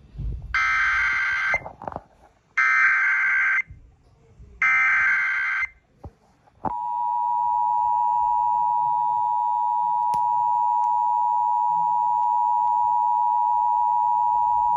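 Emergency Alert System activation received over broadcast radio: three one-second bursts of warbling SAME digital header data, about a second apart, then the steady two-tone EAS attention signal starting just under seven seconds in. It marks the start of an alert, here a severe thunderstorm warning.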